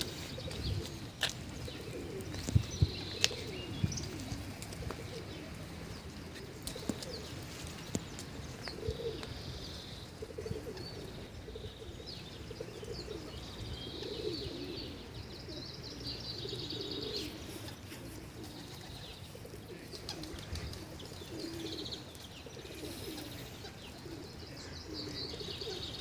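Birds calling: low cooing calls repeating throughout, with higher chirps and twittering over them. A few sharp clicks stand out about two to three seconds in.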